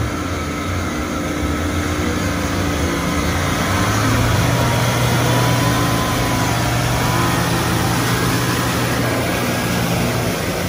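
Jeep Cherokee 4x4's engine running hard under load as it ploughs through a deep mud pit, tyres churning and throwing up mud and water. The engine gets louder about four seconds in and holds there until near the end.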